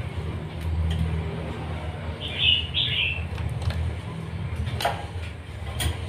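A caged white-breasted waterhen pecking food off a wooden board, giving a couple of sharp taps near the end. Under it runs a steady low rumble, and two short high bird chirps come about two and a half seconds in.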